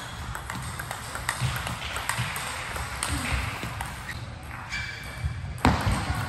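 Table tennis ball clicking off the paddles and the table in short rallies, with one loud sharp hit near the end, over the murmur of voices and other games in a large hall.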